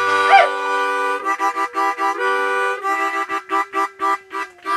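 Harmonica played in blues chords, in short pulsing blown phrases. A dog howls along with two short wavering howls at the very start.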